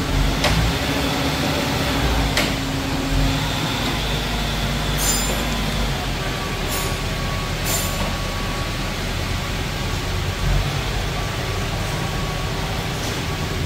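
Car repair workshop noise: a steady background rumble with a low hum that fades out about three seconds in, and a handful of short metallic clinks from tools at work on the rear suspension.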